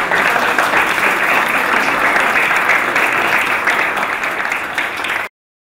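Audience applauding at the close of a talk, dense and steady, cut off abruptly about five seconds in.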